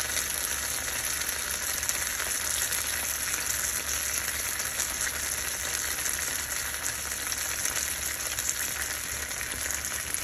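Grits cakes frying in butter and oil in a skillet, a steady sizzle.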